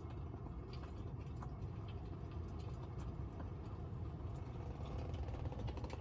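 Crackling log-fire sound effect from a Tesla Model 3's fireplace mode, played through the car's speakers, with scattered small crackles over the steady rush of the cabin heater fan blowing hot air at its hottest setting.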